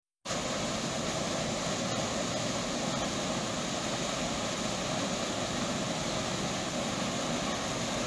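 Waterfall about ten metres high pouring into a rock pool: a steady, even rush of falling water, after a momentary dropout at the very start.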